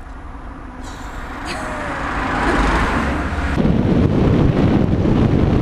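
A road vehicle approaching and going past, growing steadily louder. From about three and a half seconds in, a heavy low rumble of wind buffets the microphone.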